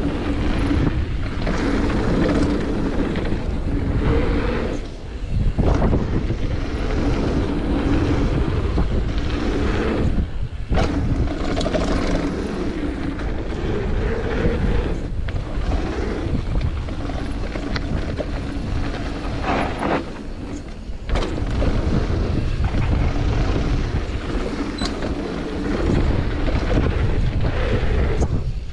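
Wind buffeting the microphone and tyres rolling and skidding over a packed-dirt downhill mountain-bike trail, with the bike rattling over the bumps. Short dips and sharp knocks come several times, between about ten and twenty seconds in.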